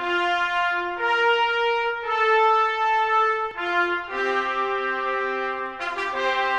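Brass section playing the opening of a fanfare: full, held chords that change every second or two.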